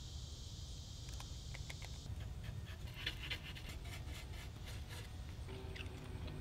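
Faint ticks and light scrapes as epoxy is squeezed from a plastic syringe and spread over wood with a small stick, over a steady low hum; a high hiss stops about two seconds in.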